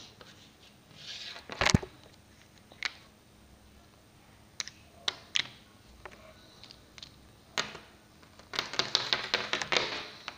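Plastic Littlest Pet Shop toy figures and toy furniture tapped and set down on a tabletop: scattered single clicks, then a quick run of taps near the end.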